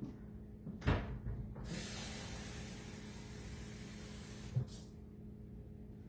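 A cup of water poured into a baking pan beside a shaped meatloaf: a knock of the cup against the pan about a second in, then about three seconds of a steady splashing hiss, ending with a soft thump as the cup is set down.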